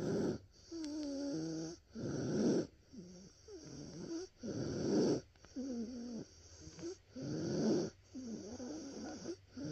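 A young child with croup breathing noisily, each breath harsh and raspy, many with a wavering pitched crow. This is stridor, the sign of a swollen, narrowed upper airway.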